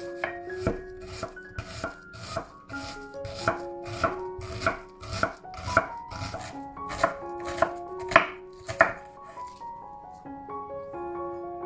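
Kitchen knife chopping vegetables on a cutting board in steady strokes, a little over two a second, over soft piano music. The chopping stops about nine and a half seconds in, leaving only the piano.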